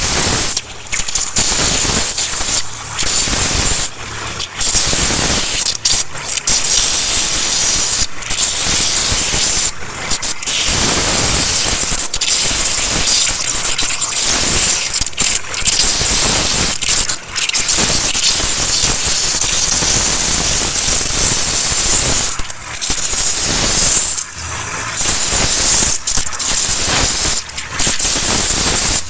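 Microwaterjet abrasive waterjet cutting through .035-inch stainless steel sheet: a loud, steady hiss of the high-pressure jet, broken by brief dips every few seconds.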